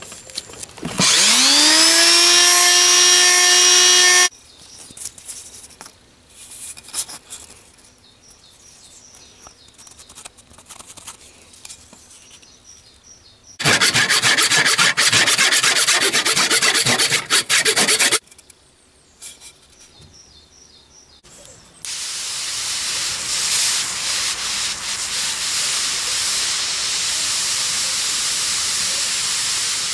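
An electric detail sander starts up, its motor whine rising and settling into a steady pitch for about three seconds before stopping. About halfway through, a few seconds of loud, harsh sanding. In the last third, a handheld gas torch flame hisses steadily as it scorches wood.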